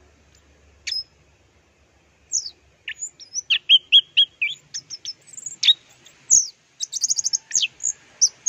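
Orange-headed thrush (anis merah) singing: a single short note, then from about two seconds in a rapid, varied run of high whistled notes and sweeps, ending in a fast trill near the end.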